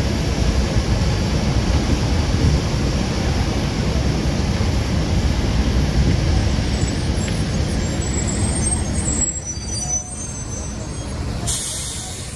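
Loud steady rumble of aircraft and ground vehicles on an airport apron, easing about nine seconds in; near the end, a short hiss of air.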